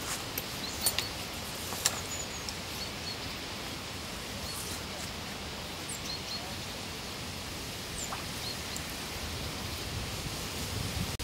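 Steady outdoor lakeside ambience, an even hiss of open air, with a few short bird chirps scattered through it and a few sharp clicks in the first two seconds.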